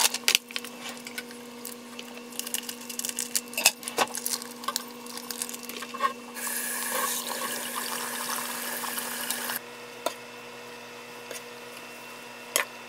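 Shirataki noodles plopping out of their plastic bag into a metal mesh strainer in a stainless steel sink, with rustling and small clicks, then a kitchen tap running for about three seconds as they are rinsed. Near the end come a few light taps of the noodles being stirred in a frying pan, over a faint steady hum.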